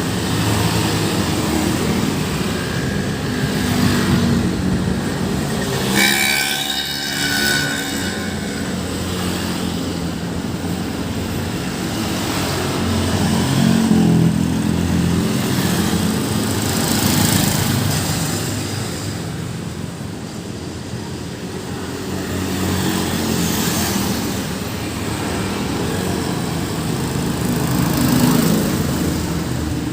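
Busy road traffic: engines and tyres of passing vehicles rising and falling as they go by. About six seconds in a horn sounds for roughly two seconds.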